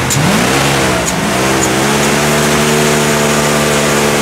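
Dodge Ram 2500's gasoline Magnum V8, running with no air box, revs up and down for about two seconds, then holds at a steady high speed. The throttle is stuck open, which they trace to a seal caught in the intake.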